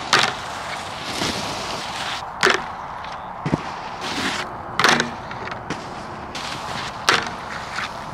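Snowboard sliding over packed snow with a scraping hiss, broken four times, about two and a half seconds apart, by a sharp clack of the board hitting a terrain-park rail.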